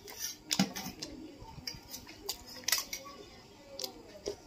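A steel spoon clicking against small stainless-steel bowls while eating, several sharp irregular clinks, some with a short ring.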